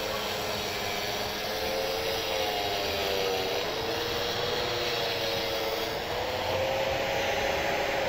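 Metabo grinder-based concrete cutting tool running and cutting into concrete, a steady motor whine with a grinding hiss. The whine dips about halfway through and climbs again near the end.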